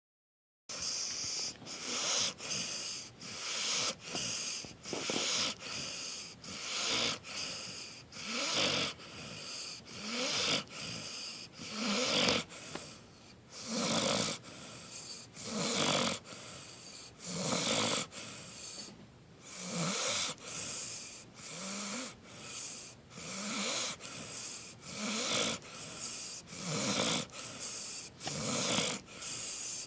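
Snoring: a steady run of rasping snores and breaths, roughly one a second, each with a low buzz under a strong hiss.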